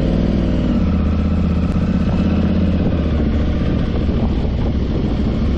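Aprilia Tuareg 660's parallel-twin engine running steadily.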